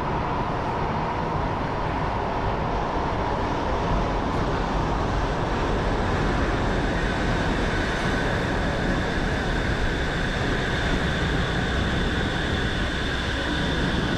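Steady mechanical hum and hiss of a Shonan Monorail suspended monorail car, with a steady two-pitched whine coming in about halfway through.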